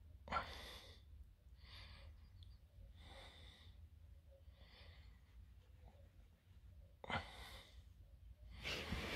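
Faint, slow, noisy breaths from an elderly kelpie lying unconscious with her mouth open, about one every one and a half seconds, during one of her episodes of unconsciousness.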